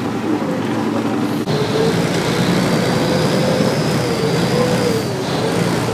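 Boat engine running with water rushing past the hull. A wavering engine drone sets in about one and a half seconds in.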